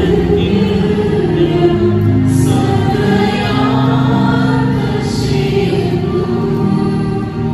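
A choir singing a hymn in long, slow held notes.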